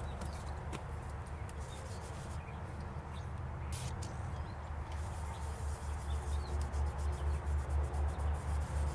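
Low mechanical hum that, about halfway through, turns into an even low pulsing about three times a second, typical of the Cub Cadet 1811 garden tractor's engine being turned over by its starter.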